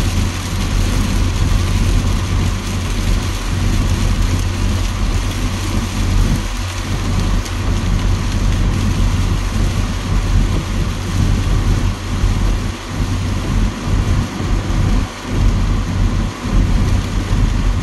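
Heavy rain on a car driving on a wet highway, heard from inside the cabin: a steady rush of rain and tyre spray over a constant low rumble from the car.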